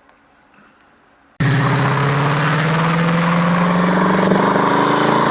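A loud engine running steadily, starting abruptly about a second and a half in, its pitch sinking slightly.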